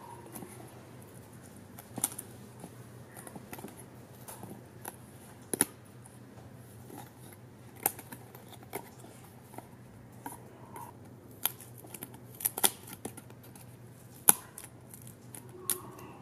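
Die-cut card pieces being pressed out of a punch-out paper sheet: irregular sharp snaps as the tabs break free, with soft paper rustling between them.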